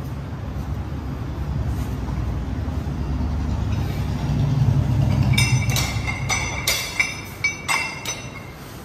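A low rumble, then a quick series of sharp metallic clanks that ring briefly: metal gym weights or machine parts knocking together.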